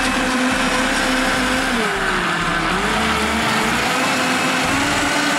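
Optimum G2.1 high-speed blender motor running loud and steady while blending a fruit smoothie. Its whine dips in pitch about two seconds in and climbs back up under a second later, then starts to sag again near the end.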